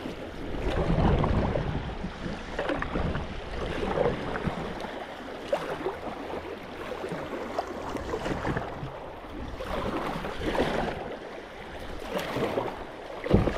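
Creek water rushing around a sit-on-top kayak as it runs a fast, shallow riffle, with paddle strokes splashing and swelling the sound every couple of seconds. A sharp knock comes near the end.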